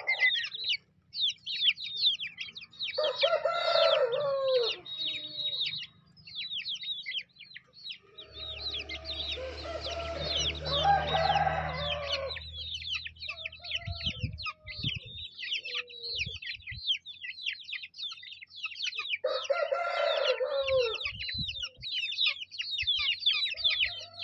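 A flock of young Bhimavaram Aseel gamefowl chicks peeping non-stop as they peck at feed, many short high cheeps overlapping. Three times, about 3 s, 8 s and 19 s in, a grown chicken gives a longer, deeper call over them.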